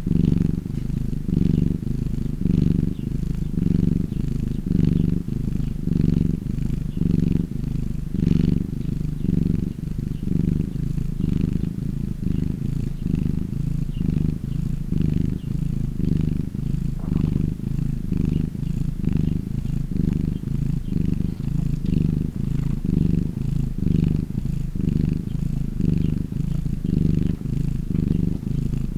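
A domestic cat purring steadily, the purr swelling and easing about once a second as the cat breathes in and out.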